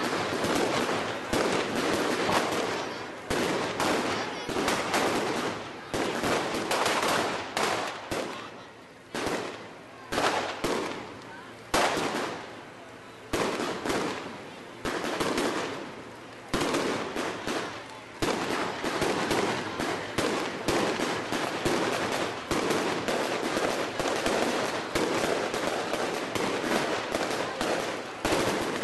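Fireworks display fired close by: rapid, near-continuous volleys of bangs and crackling from aerial shells bursting overhead, with a few brief lulls partway through.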